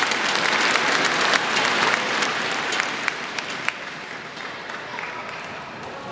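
Arena crowd applauding after a point in a badminton match, loud at first and dying away about three to four seconds in.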